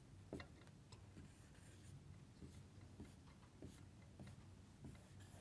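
Faint marker writing on a whiteboard: a series of light strokes and taps.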